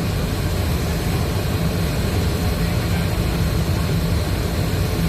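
Spider crane's engine running with a steady low hum.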